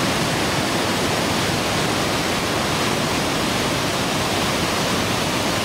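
Tuolumne River white water cascading down a steep granite slab: a steady rush of falling water with no letup.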